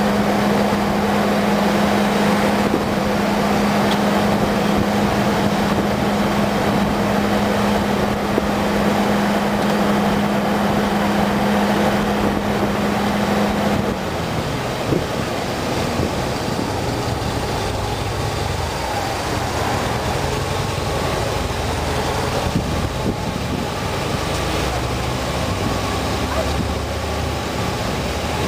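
Car engine and road noise while driving slowly through town streets. A steady engine note holds for the first half, then drops away about halfway in as the car turns a corner, leaving a lower engine hum.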